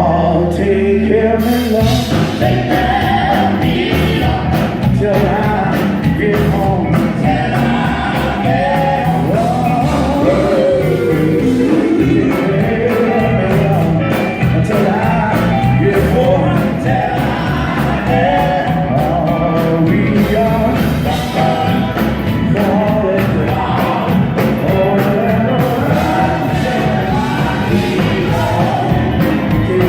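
Live gospel quartet music: a male vocal group singing together over a full band, with guitar and bass.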